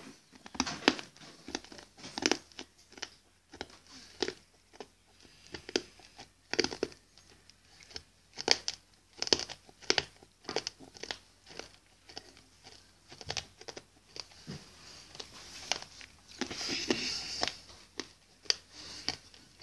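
Hard sour candy being crunched and chewed in the mouth close to the microphone: irregular crisp crunches and clicks, one to three a second.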